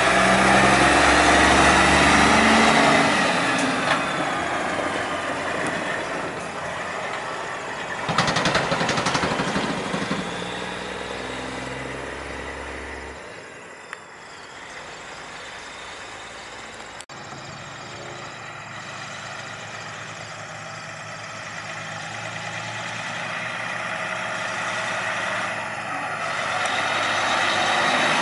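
Semi-truck diesel engines passing close. A Peterbilt pulling a dry van runs loud, surges once more about eight seconds in, and fades as it drives away. After a sudden cut, another tractor-trailer's engine grows louder as it approaches.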